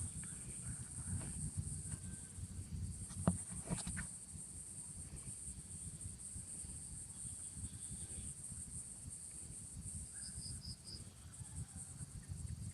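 Steady high-pitched chirring of insects over a low rumble, with a couple of faint clicks about three to four seconds in.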